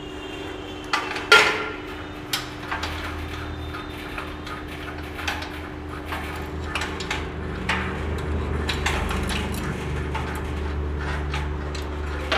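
Irregular metallic clinks and knocks of nuts and washers being turned and handled on the threaded leveling rods under a paper plate making machine's die plate, with a sharper knock about a second in. The nuts are being set evenly to level the plate so the die cuts on all sides. A steady low hum runs underneath.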